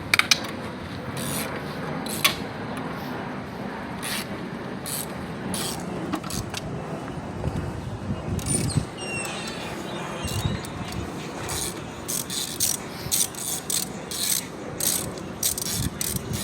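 Ratchet wrench clicking in short runs, with scattered metal clinks, as the bolts of a transmission oil pan are loosened.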